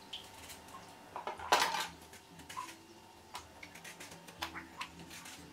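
Kitchen knife and vegetable peeler working on a raw carrot: scattered light clicks and scrapes, with one louder clatter of the utensils about one and a half seconds in.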